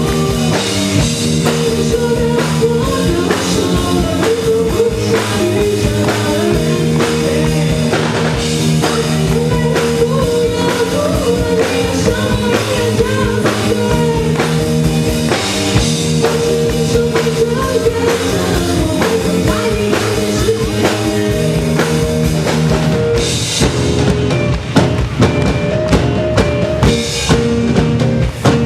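Live piano-rock band playing: drum kit keeping a steady beat under sustained keyboard chords and a moving bass line. Near the end the chords drop back and hard drum hits come to the front.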